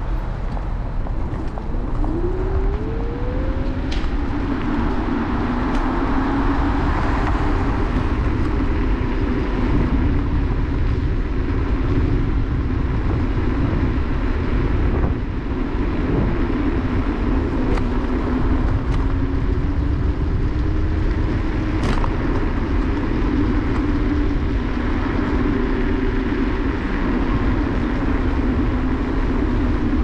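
Electric scooter riding along a street: steady wind and road rumble on the handlebar-mounted microphone, with a whine from the scooter's motor that rises in pitch as it speeds up about two seconds in, then holds and wavers with speed. A couple of sharp clicks come along the way.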